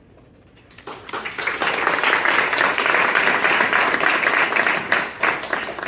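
Small seated audience applauding. The clapping starts about a second in, holds steady, and dies away near the end.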